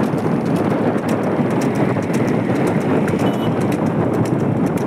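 Water buffalo bull's hooves clip-clopping on asphalt at a trot as it pulls a wooden cart, over a steady rumble of road noise.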